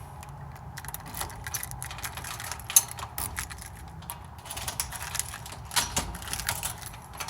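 Irregular clicks and rattles of small objects being handled inside a car, with one sharper click about three seconds in, over a steady low hum.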